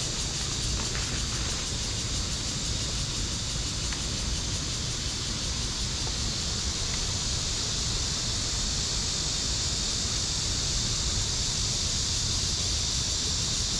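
Steady rushing noise of river water, with a low wind rumble on the microphone.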